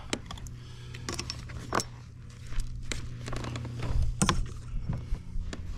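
Irregular knocks, taps and scrapes on a kayak as a freshly landed, lively fish is handled, with a steady low hum underneath. The strongest knock comes about four seconds in.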